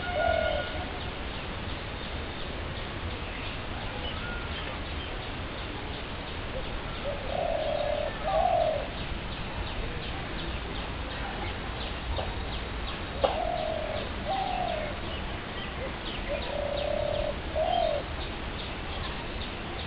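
A bird cooing: a low two-part call, a flat note then a rise and fall, heard four times with gaps of several seconds. Faint thin chirps sound above it, and there is one sharp click midway.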